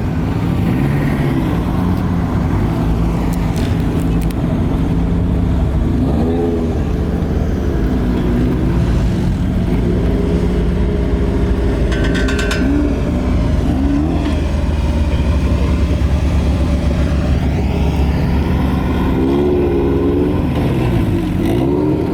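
A car engine idling steadily, with its exhaust running at a constant note.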